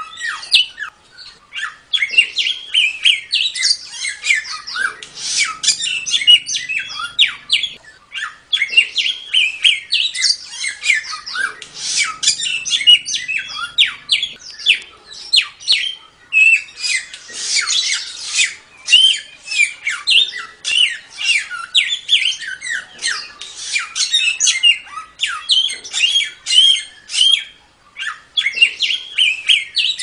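Samyong songbird singing a rapid-fire 'tembak' song: a dense, almost unbroken stream of sharp chirps, trills and quick rising and falling whistles, with only a few short pauses.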